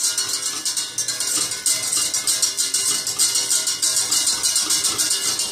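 Metal whisk beating a thickening milk pudding mixture in a stainless-steel pot: a fast, steady scraping rattle of several strokes a second, loud enough that the cook calls it noisy. The whisking is kept quick so the mixture thickens smoothly without lumps.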